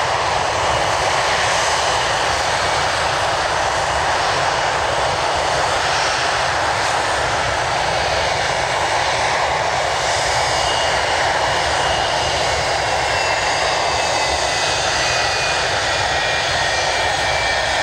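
English Electric Lightning F.6's twin Rolls-Royce Avon turbojets running steadily on a static ground run: a loud, continuous rush of jet noise with a thin high turbine whine that drops slightly in pitch in the second half.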